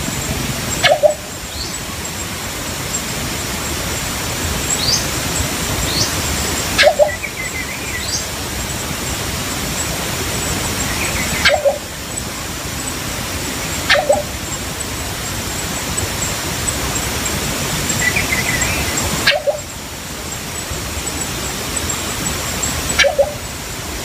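Philippine coucal giving about six short, low calls a few seconds apart, over a steady rushing hiss, with a few faint high chirps from smaller birds.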